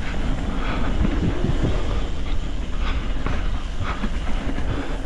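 Wind buffeting the action camera's microphone over the steady rumble and rattle of a mountain bike rolling fast down a dirt singletrack.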